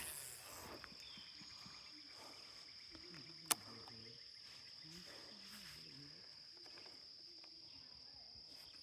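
Steady high-pitched drone of insects, such as crickets, with a single sharp click about three and a half seconds in.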